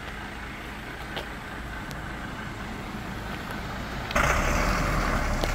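Crane truck's diesel engine idling steadily; about four seconds in, a sudden loud hiss of released air from the truck, typical of its air brakes letting off as it gets ready to move, lasting about a second and a half.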